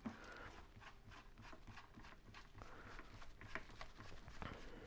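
Near silence, with faint scattered small clicks and handling noises.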